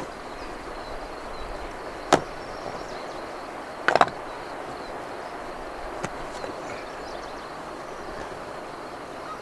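Split firewood knocking as it is handled and set down at a stone fire ring: single sharp knocks a couple of seconds apart, a quick double knock about four seconds in and a fainter one near six seconds. Under them is a steady outdoor hiss.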